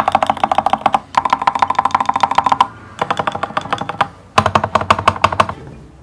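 Mechanical keyboard with Lofree Wonderland keycaps being typed on rapidly, in four quick runs of keystrokes with short pauses between them. The typing stops shortly before the end.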